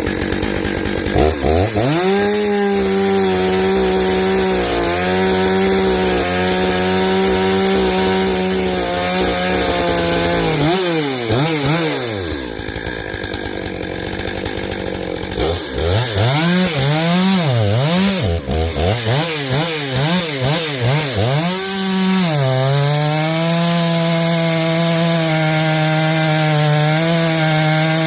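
Stihl MS 661 C two-stroke chainsaw at full throttle cutting through oak, held steady under load for several seconds. Near the middle the revs drop back, then it is revved up and down several times. It settles into a steady, slightly lower-pitched cut near the end.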